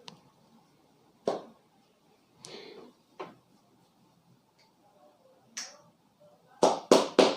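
Hand slaps on a head during a vigorous head massage: a few scattered single slaps, then a quick run of four loud slaps near the end.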